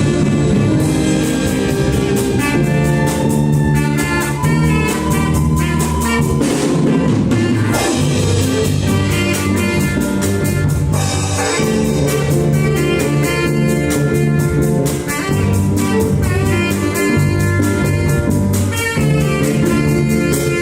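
Instrumental ensemble music: held melody and bass notes over a drum kit keeping a steady beat.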